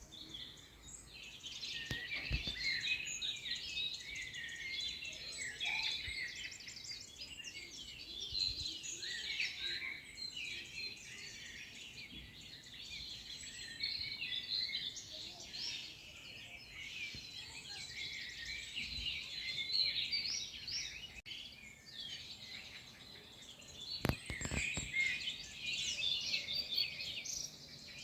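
Many small songbirds chirping and singing at once in a dense, continuous chorus, with a couple of soft low thumps about two seconds in and again near the end.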